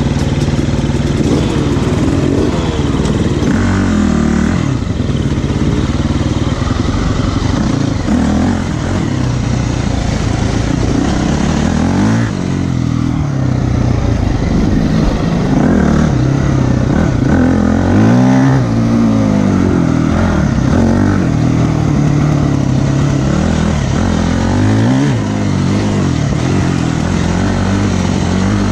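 Enduro dirt bike engine running hard under the rider, its pitch rising and falling over and over as the throttle is opened and closed.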